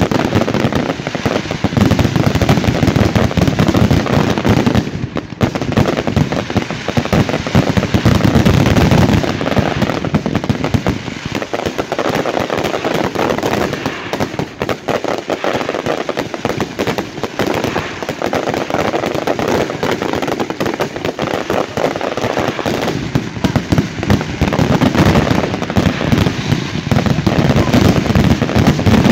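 Fireworks and firecrackers going off in a dense, unbroken barrage of overlapping bangs and crackling, easing only briefly a few times.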